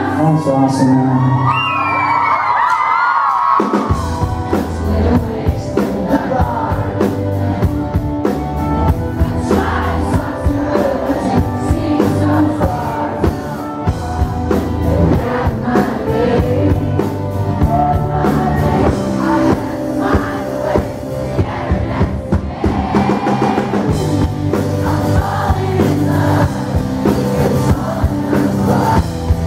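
Live rock band with a lead singer, acoustic and electric guitars, bass and drum kit. It opens with voices singing and no drums or bass, then the full band with drums comes in about four seconds in and plays on.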